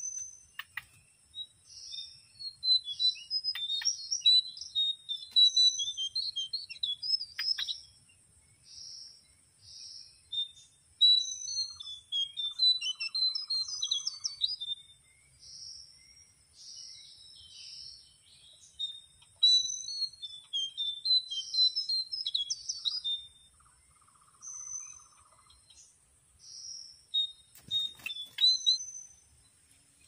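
Small forest birds calling in bursts of rapid high chirps and short downslurred whistles, with pauses of a few seconds between bursts. A steady high-pitched insect buzz runs underneath, and a brief rustle comes near the end.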